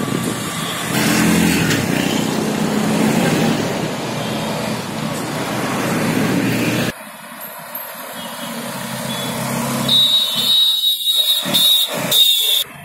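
Road traffic passing close by: CNG auto-rickshaws, a car and a bus driving past, with engine and tyre noise. About halfway through the sound cuts suddenly to a quieter stretch. In the last few seconds a high steady whine rises over the passing traffic.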